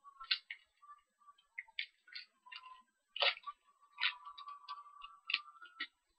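Irregular light clicks and taps of sealed trading-card packs being shuffled and handled by hand, about a dozen in all.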